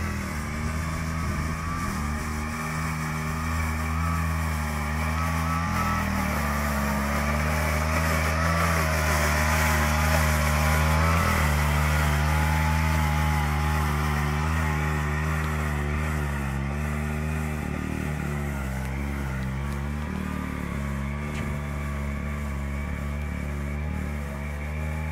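Agria 4000 walk-behind tractor's engine running steadily under load as its rotary sweeper brush scrubs grit off paving, a brushing hiss over the engine note. It grows a little quieter near the end as the machine moves away.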